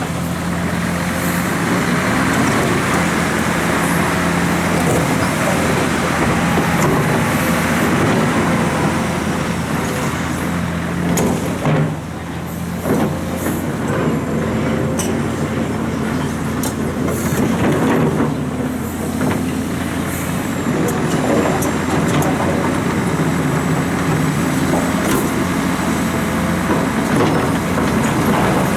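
Liebherr R926 excavator's diesel engine working steadily under load, with hydraulic and machinery noise. Louder noisy rushes and knocks come twice, about twelve and nineteen seconds in.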